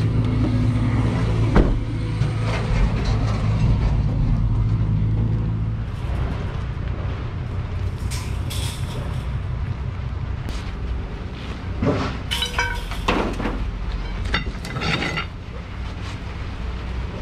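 A vehicle engine hums steadily for the first six seconds and then stops abruptly. After that, three separate crashes of scrap metal come a few seconds apart, about eight, twelve and fourteen seconds in, as pieces are thrown onto a scrap pile, with a low rumble running under them.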